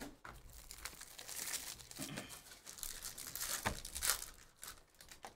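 Trading card pack wrappers crinkling and tearing as hobby packs are ripped open and handled: a continuous rustle with many sharp crackles, cutting off suddenly at the end.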